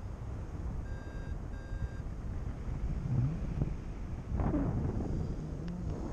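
Wind rushing over the microphone in flight, with two short, steady beeps from a paragliding variometer about a second in, the tone it gives when the glider is rising in lift.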